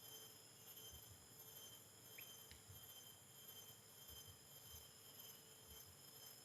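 Near silence: faint steady high-pitched tones, with two very brief faint chirps about two seconds in.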